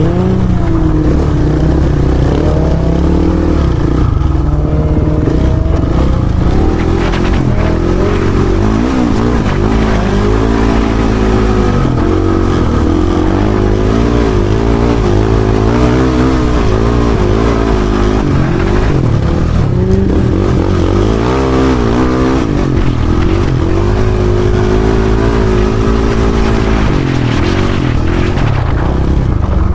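Dirt bike engine heard onboard, revving up and down continuously as it rides over sand dunes, with the pitch rising and falling every second or two.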